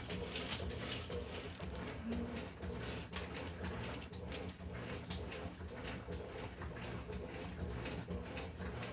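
Brastemp BWF09A top-loading washing machine agitating: a low steady motor hum under a quick, even run of swishes as the agitator churns the water.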